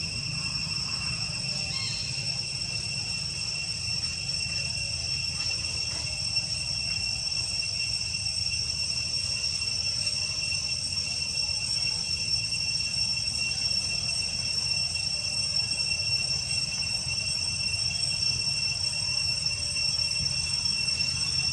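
Insects droning steadily in one unbroken high-pitched whine, over a low steady rumble.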